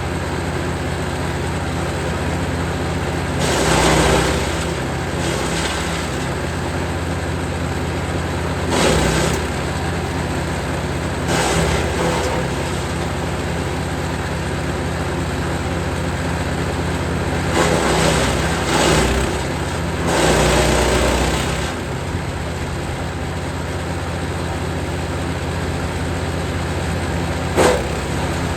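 Jansen 1500e GTS wood chipper running steadily, with about six louder bursts of crunching and shredding as apple, plum and pear branches are fed through, the last one short and sharp near the end.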